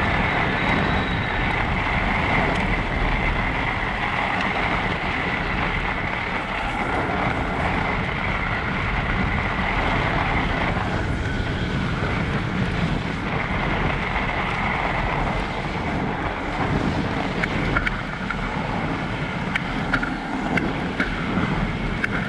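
E-bike ridden over packed snow: wind buffeting the microphone over a steady rush of tyre noise, with a steady electric motor whine through the first half. A few sharp clicks come near the end.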